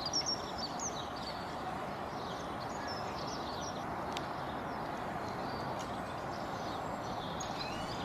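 Outdoor ambience: a steady background hiss with small birds chirping, most busily around the start and a few scattered chirps later.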